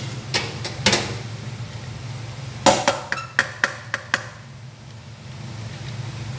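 Metal cookware clanking: a couple of knocks near the start, then a quick run of about six sharp clanks with short ringing as a steel pot of cooked rice is tipped and knocked against the rim of the pot below. A steady low hum runs underneath.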